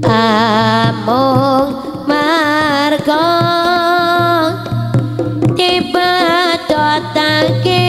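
Live Javanese jaranan gamelan music. A melody line of long, wavering held notes runs over a steady low tone.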